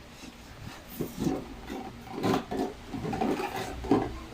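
A toy box being opened and handled: uneven rubbing, rustling and light knocks, several in a row.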